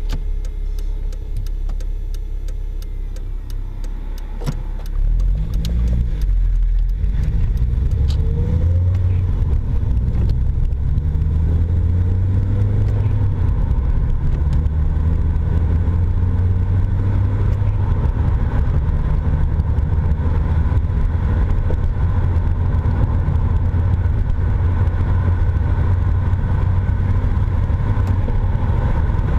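Inside the cabin of a Toyota MR2 Spyder: its 1.8-litre four-cylinder engine and road noise, with a few sharp knocks in the first several seconds. About five seconds in, the engine revs climb as the car accelerates, then settle into a steady cruise.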